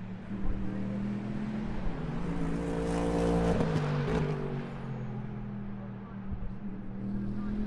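GT Le Mans race car engines running on track: a steady engine drone throughout, with one car coming close and passing about three seconds in, its engine note swelling loud and then fading away.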